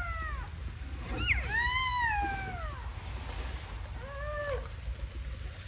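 Newborn puppies crying in thin, mewing squeals, three separate cries each rising and then falling in pitch, the middle one the longest and loudest.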